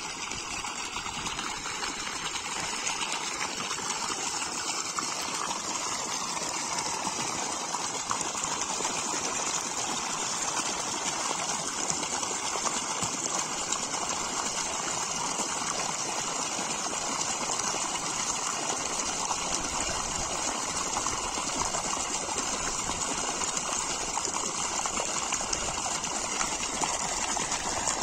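Steady stream of water gushing from a pipe outflow and splashing into open water.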